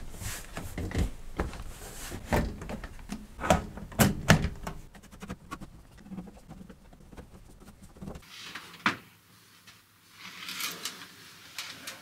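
Side panel of a full-tower PC case being fitted back on, with a series of knocks and clunks, then quieter handling and one more knock later on.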